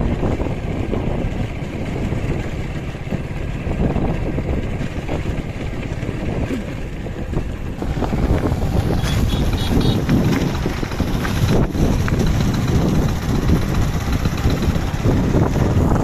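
Small motorcycle being ridden along a dirt road: the engine running under wind buffeting on the microphone, a little louder from about halfway through.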